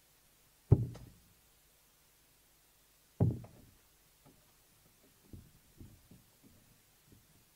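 Two steel-tip darts striking a Winmau Blade 6 bristle dartboard, each a sharp thud about two and a half seconds apart. Then comes a run of small clicks and scrapes as the darts are pulled out of the board.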